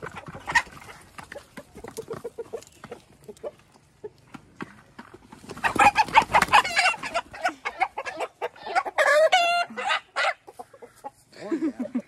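Chickens clucking quietly, then loud alarmed squawking with wing flapping about halfway in as a rooster is grabbed by hand, and a second run of squawks a few seconds later.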